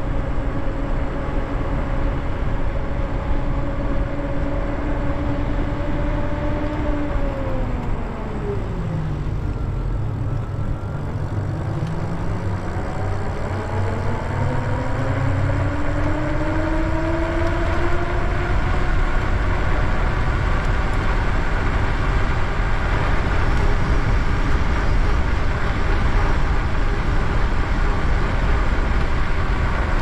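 Lyric Cycles Graffiti e-bike's electric motor whining as it rides at speed. Its pitch falls as the bike slows about eight seconds in, then rises again as it speeds back up, over steady wind and road rush.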